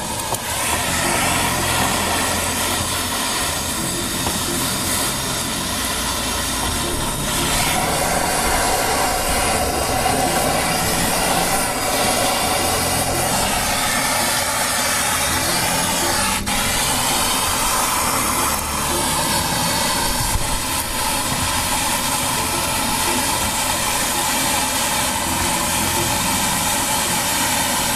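Handheld gas torch running with a steady, loud hissing flame as it is held on charcoal briquettes in an offset smoker's firebox to light them. The tone of the hiss shifts slightly about seven seconds in.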